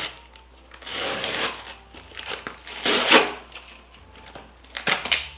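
Cardboard shipping box being torn open by hand: ripping cardboard and packing tape in a few rasping bursts, the loudest about three seconds in, with a couple of sharp clicks near the end.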